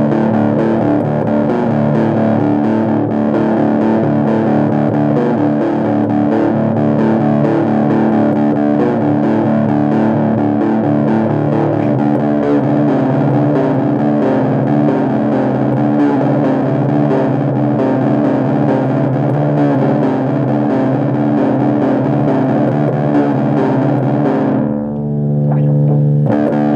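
Electric guitar through heavy distortion playing a metal riff. About two seconds before the end the riffing stops and a single low note rings on.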